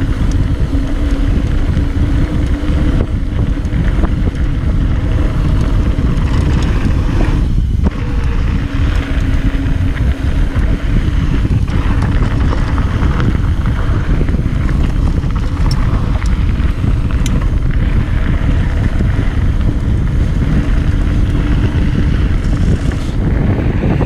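Wind rushing over a chest-mounted action camera's microphone during a fast mountain bike descent, over steady tyre noise on the dirt trail, with a few faint clicks and rattles from the bike.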